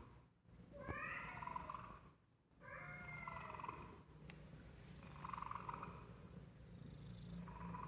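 Domestic cats meowing, two meows about one and three seconds in, with a cat purring underneath from about three seconds on.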